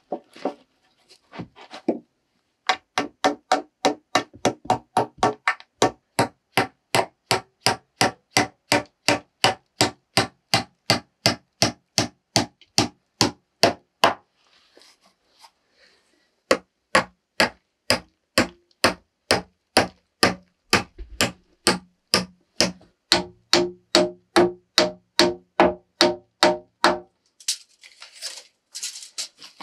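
Hammer driving nails into a pine board against a log wall: quick, steady blows about three a second in two long runs, with a pause of a couple of seconds between them. Each strike rings with a short tone.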